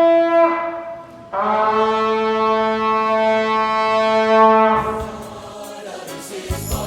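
Shofar sounding two long, steady blasts. The first ends under a second in; after a short gap the second is held for about three seconds and then stops.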